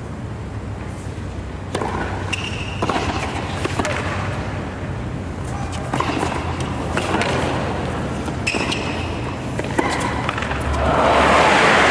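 Tennis ball struck back and forth with rackets in a rally, a sharp knock about once a second, with a constant low crowd hum under it. Near the end the point finishes and the crowd's applause swells.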